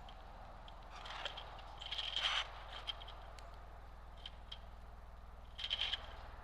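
Birds feeding at a feeder: short clicks and taps of pecking and scrabbling at seed, coming in a few quick clusters, over a low steady hum.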